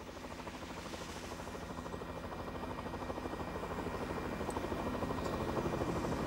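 Helicopter rotor chopping in a fast, even rhythm, growing steadily louder.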